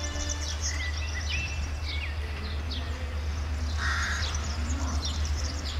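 Low steady rumble of a CFR Class 65 GM-engined diesel-electric locomotive approaching slowly, with birds chirping and calling over it.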